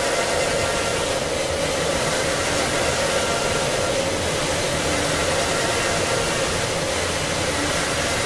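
Steady dark-ambient noise drone: an unbroken hiss with a hum-like band running through it, unchanging throughout.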